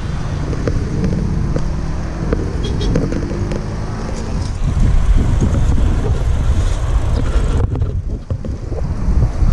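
Wind rumbling on the microphone, mixed with road and traffic noise, heard from a moving bicycle.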